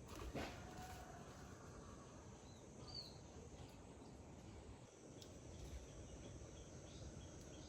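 Near silence: faint rural ambience with a steady high insect drone and a few faint short bird chirps, one right at the start and one about three seconds in.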